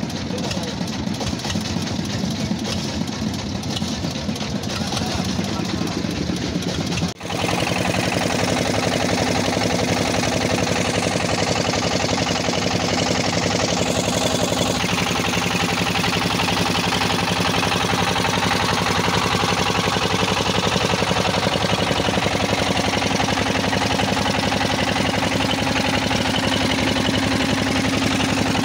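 Motorboat engine running steadily under way. It dips out briefly about seven seconds in and comes back louder.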